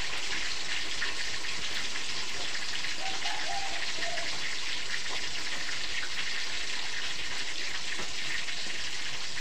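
Steady sizzling hiss of tofu frying in hot oil in a wok, with faint crackles.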